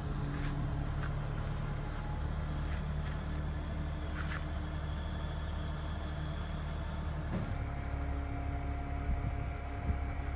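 Truck-mounted crane's engine running steadily while hoisting a load, its note shifting about seven and a half seconds in.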